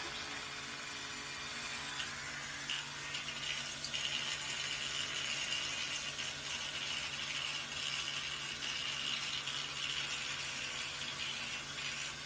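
Electric toothbrush buzzing steadily while its brush head rubs a parrot's head feathers, with a brighter hiss that sets in about four seconds in and eases off near the end.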